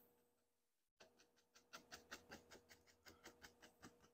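Faint, quick, even tapping of a large 2-inch paint brush on a canvas, several taps a second, as it dabs dark paint onto the wet surface.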